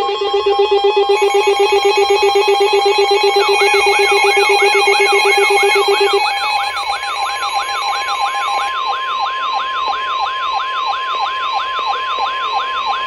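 Several electronic emergency alert tones sounding at once: a steady high tone, the NOAA Weather Radio warning alarm tone, under a fast-pulsing lower tone that stops about six seconds in. From about three seconds in, a siren-like rising-and-falling sweep joins, repeating about two and a half times a second.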